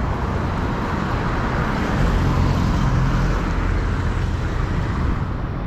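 Steady rushing background noise, a little louder from about two seconds in.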